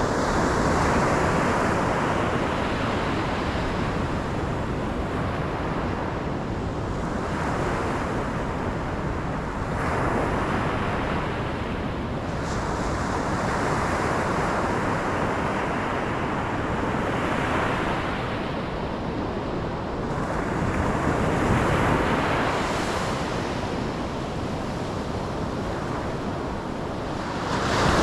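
Ocean waves breaking and washing onto a shore: a continuous rushing surf that swells and ebbs every few seconds.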